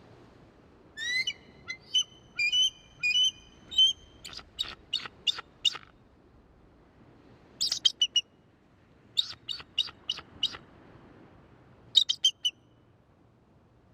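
An eagle calling: a few high whistled notes, then several bouts of rapid, sharp, piping chirps.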